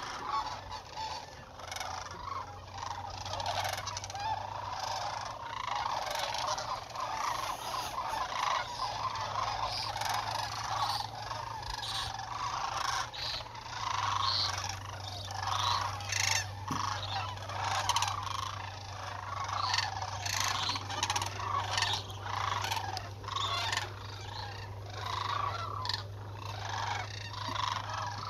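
A large flock of sandhill cranes calling, a dense chorus of many overlapping calls with no pause.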